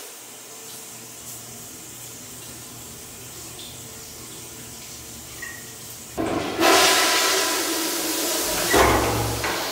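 Toilet flushing: a loud rushing whoosh of water that starts suddenly about six seconds in, after several seconds of quiet room tone.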